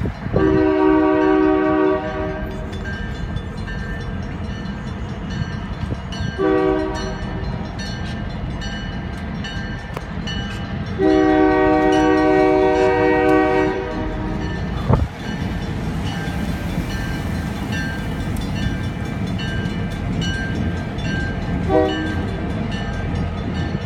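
Union Pacific diesel freight locomotive's multi-chime air horn sounding four blasts for a grade crossing: a long blast at the start, a short one about six seconds in, a long one around eleven seconds, and a short one near the end. Underneath, the approaching train rumbles steadily and the crossing warning bell rings, with one sharp knock about fifteen seconds in.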